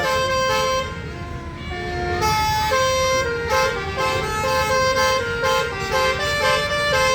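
Bus 'telolet' musical air horn playing a tune of short held notes that step up and down in pitch. It breaks off briefly about a second in, then starts again and carries on, over a low rumble of engines and traffic.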